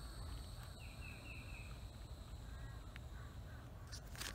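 A bird calling three short notes in quick succession about a second in, faint over a low steady outdoor background.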